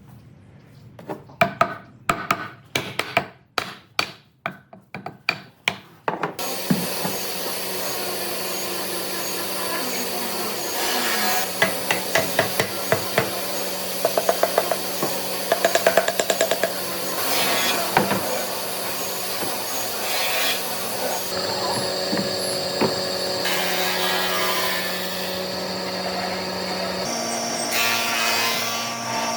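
About a dozen sharp knocks on wood, then a power tool starts and runs steadily, working wood with a constant hum and bursts of quick rattling.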